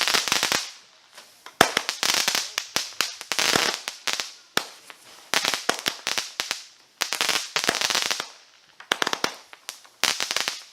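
Consumer firework cake going off: repeated volleys of dense, rapid crackling pops, each lasting from under a second to a couple of seconds, with short gaps between the volleys.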